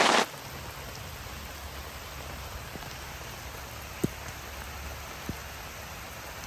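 Steady rain falling on the ground and trees, an even hiss, with two sharp taps about four and five seconds in.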